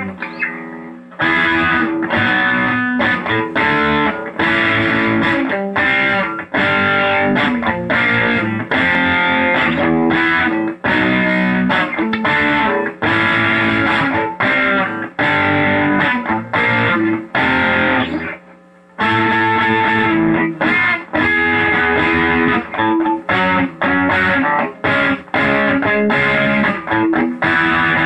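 Rickenbacker electric bass played through distortion: a fast, choppy riff of short stopped notes, with a brief break about eighteen seconds in.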